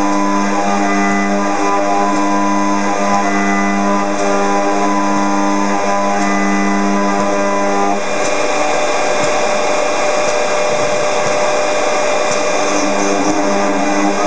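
A robot-held high-speed FIMEC milling spindle machining aluminium, running with a steady whine. About eight seconds in, the sound turns rougher and noisier, with one steady tone on top, as the cutting changes.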